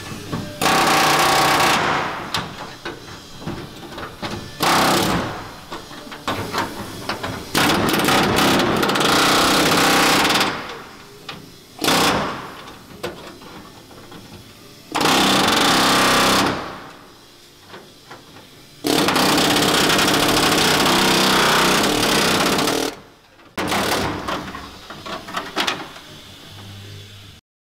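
A handheld air tool cutting through the sheet-steel trunk floor pan of a 1969 Camaro. It runs in about seven loud bursts of one to four seconds, with quieter pauses between them. This is the old trunk pan being cut out so a new one can be fitted.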